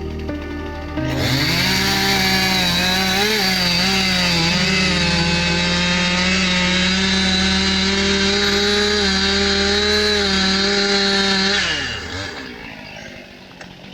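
Chainsaw throttled up about a second in and held at high revs through a cut, its pitch sagging a few times as the chain bites. Near the end the throttle is released and the engine note drops away.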